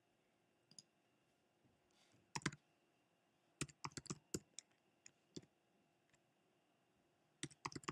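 Typing on a computer keyboard: scattered keystrokes and short quick runs of them, with pauses of near silence between.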